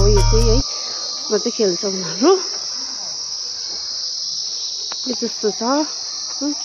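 A steady, high-pitched insect drone outdoors. Background music cuts off about half a second in, and faint voices come through briefly twice.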